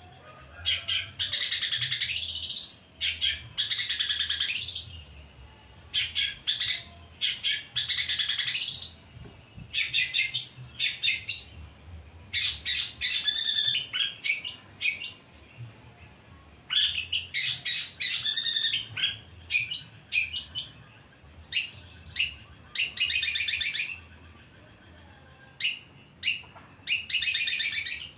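Five-month-old long-tailed shrike (cendet) singing in loud phrases of rapid notes, one after another with short pauses between them.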